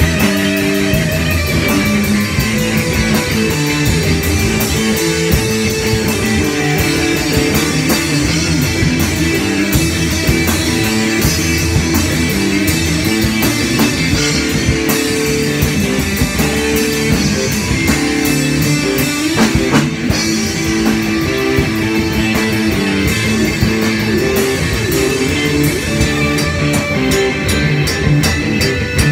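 Rock band jamming live: electric guitars over a drum kit, with cymbal strikes that come thicker near the end. The playing is improvised.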